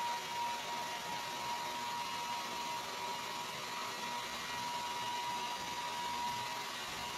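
Handheld hair dryer running steadily: an even rush of air with a constant high whine.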